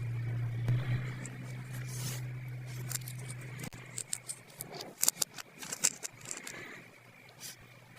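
Small plastic toy pieces and packaging being handled and unpacked: scattered light clicks, taps and rustles, busiest in the second half. A low steady hum runs underneath and stops a little before the middle.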